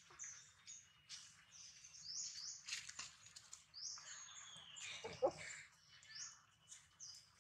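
Birds chirping over and over, short high chirps and downward-gliding notes, with a brief lower-pitched call a little after five seconds and a few sharp clicks near the middle.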